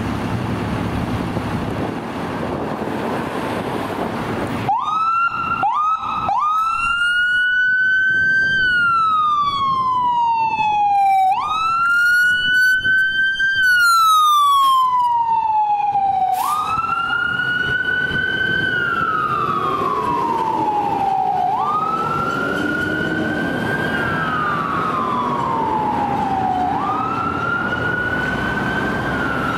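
Siren of a 2022 Rosenbauer RTX electric fire engine, heard over street noise. About five seconds in it starts with three quick yelps, then wails in long cycles, each a fast rise and a slow fall, about five seconds apart, a little fainter in the second half as the engine drives off.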